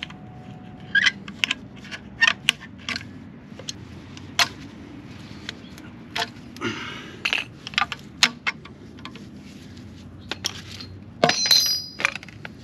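Metal hand tools and small exhaust parts clinking and clattering as they are handled and set down on stone paving, in short irregular clicks. A brief scrape a little past halfway, and a louder metallic clank that rings near the end.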